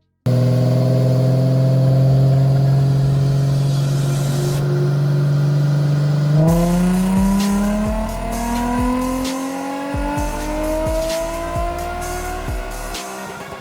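Nissan 350Z's 3.5-litre VQ35HR V6 with an aftermarket catback exhaust, running on a chassis dyno. It holds a steady engine speed for about six seconds, then goes into a dyno pull, its pitch climbing steadily through the revs until near the end.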